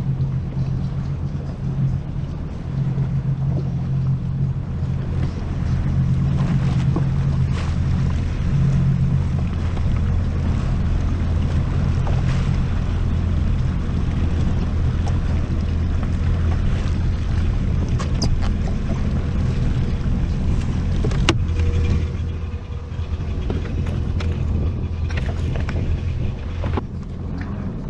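Jet ski engine running steadily under way, dropping off a little near the end.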